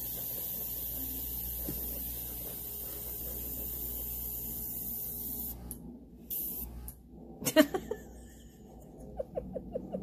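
Master airbrush blowing a steady hiss of air to push alcohol ink out across glossy photo paper, cutting off a little over halfway through. A few sharp knocks follow, then a quick run of light ticks.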